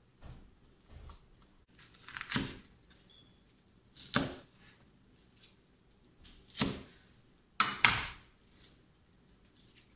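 Chinese cleaver chopping through bok choy stalks and hitting a bamboo cutting board: three sharp chops about two seconds apart, then a quick double knock as the cleaver is set down on the board near the end. Soft rustles of the leaves being handled at the start.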